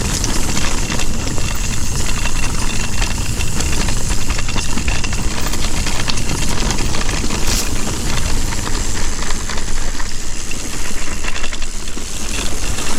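Electric mountain bike ridden fast along a trail: steady rushing wind noise over the microphone with tyre rumble and fine crackle from the trail surface.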